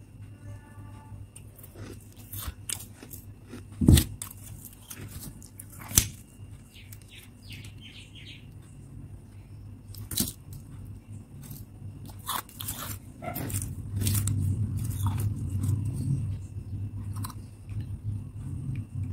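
Powdery freezer frost crunched in bites and chewed, with the spoon scraping and clicking against the bowl. There are two sharp knocks about four and six seconds in, and a denser stretch of crunching near the end.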